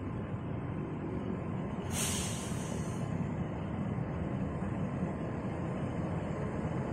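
Diesel locomotive hauling a freight train, its engine a steady low rumble as it approaches, with a brief hiss about two seconds in.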